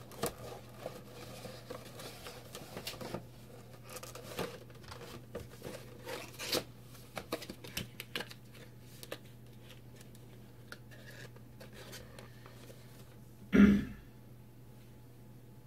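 Packaging being handled and put back into a shipping box: scattered rustling, crinkling and small clicks of plastic and cardboard over a steady low hum. Near the end comes one short, much louder sound.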